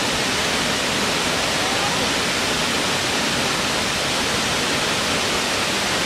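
Waterfall: a steady, unbroken rush of water falling over rock.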